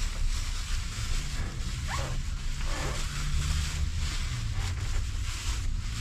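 Thin plastic rain poncho, about as thick as a Ziploc bag, crinkling and rustling as it is pulled on over the head and shoulders, with a low steady rumble underneath.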